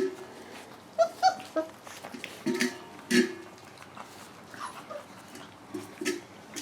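Young puppies whimpering and squeaking in a string of short, high little cries, with small scuffling noises between them.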